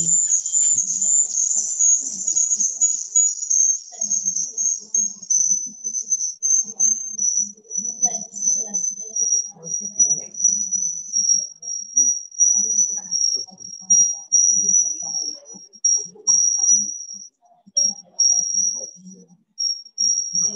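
A steady, high-pitched electronic whine that slides down a little in pitch over the first several seconds and then holds, over faint muffled voices. It is interference on a video call's sound that leaves the speakers hard to hear.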